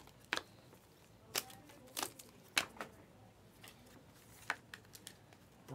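Trading cards being flipped through by hand, one at a time off a stack: irregular short, crisp clicks and snaps as each card slides off the next.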